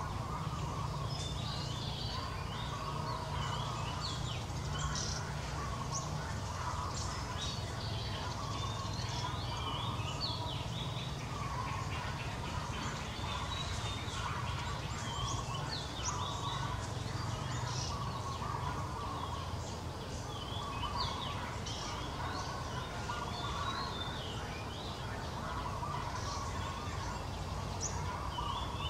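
Outdoor ambience of many short chirping bird calls and fowl-like clucking throughout, over a steady low rumble.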